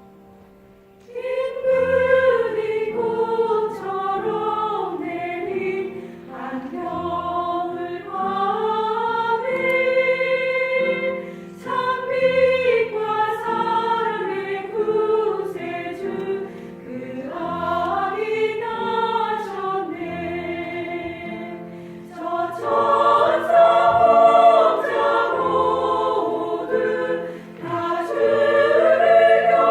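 A church vocal ensemble singing a Christmas song in several parts with piano accompaniment. The voices come in about a second in and sing in phrases of a few seconds each, with short breaths between.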